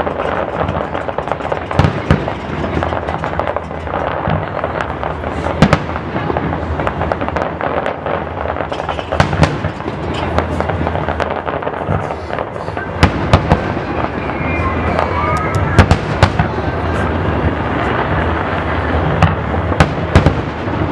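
Fireworks display: a dense run of shell bursts going off one after another, with crackling and several sharper, louder bangs scattered throughout.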